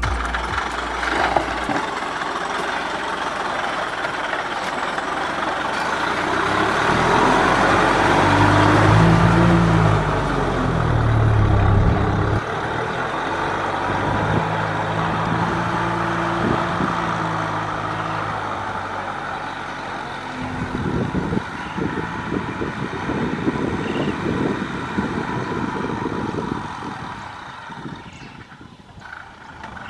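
Kubota M6040SU tractor's diesel engine working under load while pulling a rotary tiller through dry soil. Its pitch rises and falls in the first half, and a rough, uneven clatter takes over in the second half.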